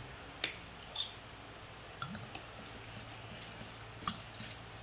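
Metal screw cap twisted off a glass liquor bottle with a couple of sharp clicks in the first second, then white rice spirit poured from the bottle into a large glass jar of peaches, a faint trickle with small gurgles.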